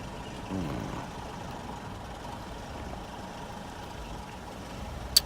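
Car engine idling steadily: the 2004 Chevy Impala's engine. A brief falling voice sound comes about half a second in, and a single sharp click near the end.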